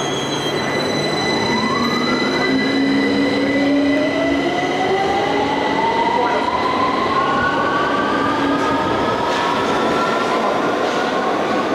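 London Underground 2009 stock train on the Victoria Line pulling out of the platform and accelerating. Its traction motors give a whine that climbs steadily in pitch over a continuous rumble of running gear.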